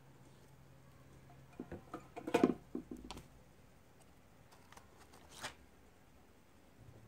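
LG M26 18650 lithium-ion cells being handled at a battery internal-resistance meter: a cluster of clicks and knocks about two and a half seconds in as a cell comes out of the meter's clamp fixture, then a single sharp click near the middle as another cell is taken from its cardboard box.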